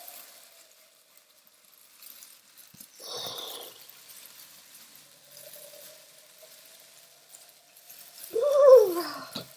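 A short rustle about three seconds in, then near the end a loud wordless vocal cry that falls in pitch, over a faint steady tone.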